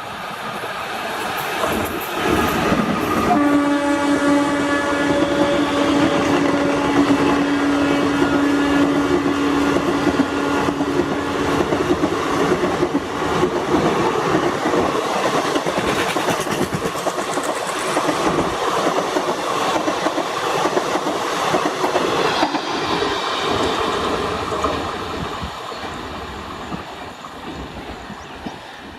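Indian Railways WAP-4 electric locomotive sounding its horn in one long blast while the express train runs past, its coaches rumbling with wheel clickety-clack on the rails. The passing noise fades over the last few seconds.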